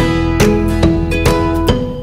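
Background music: plucked acoustic guitar playing a steady run of notes, a little over two a second.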